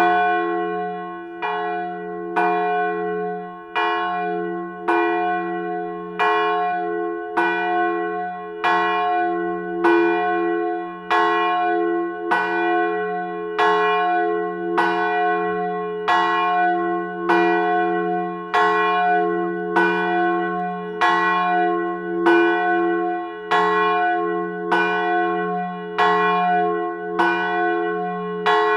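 A low church bell tolling at a steady pace, struck roughly once every 1.2 seconds. Each stroke rings on into the next over a deep, continuous hum.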